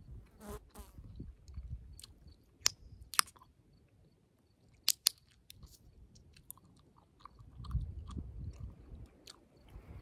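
Chewing gum close to the microphone, with soft wet clicks and several sharp gum pops, the loudest about three and five seconds in.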